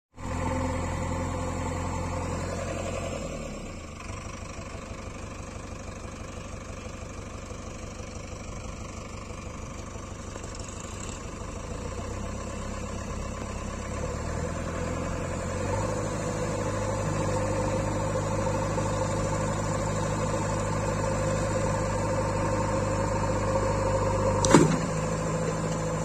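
JCB 3DX backhoe loader's diesel engine running. It drops back to a lower, quieter note about four seconds in and is revved up again to a steady higher level around sixteen seconds. A single sharp knock comes near the end.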